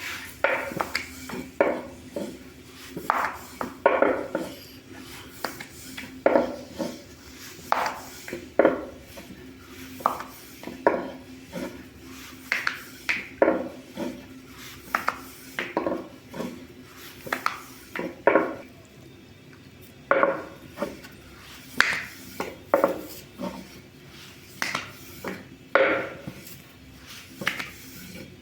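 Kitchen work sounds: irregular knocks and clinks of utensils against dishes and pans, roughly one a second, over a faint steady hum.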